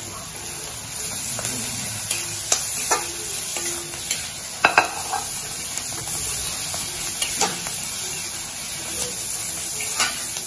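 Shredded banana stem sizzling in oil in a pan as it is stir-fried. A spatula scrapes and taps against the pan now and then.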